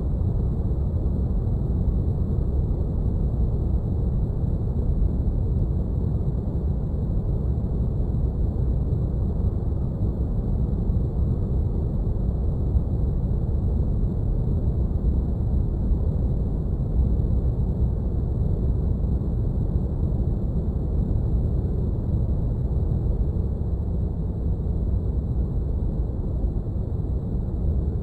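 Sci-fi spaceship cockpit ambience: a steady, deep brown-noise hum with most of its weight in the bass. Faint, thin, high tones hold steady above it.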